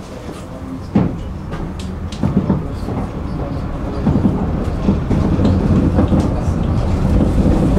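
Tram running on its rails and gathering speed, its low rumble growing steadily louder, with sharp clacks of the wheels over rail joints, the first about a second in and a few more after it.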